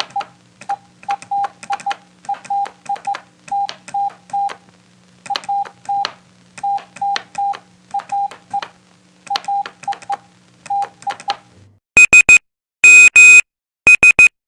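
Morse code sent as on-off beeps of one steady middle pitch, short dots and longer dashes in letter groups, over a faint low hum. About twelve seconds in, three louder groups of higher-pitched beeps follow.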